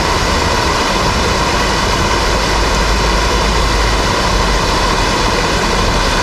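Steady rushing of a small cascade of stream water spilling into a rocky pool.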